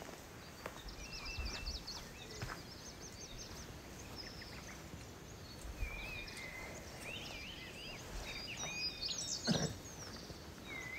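Several small birds chirping and whistling over steady rural background noise, with a few faint knocks and one brief louder low sound about nine and a half seconds in.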